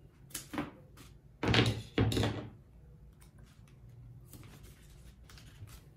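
Paper masking tape being pulled from its roll and cut with scissors: two loud short noises about a second and a half and two seconds in, with fainter clicks and paper handling around them.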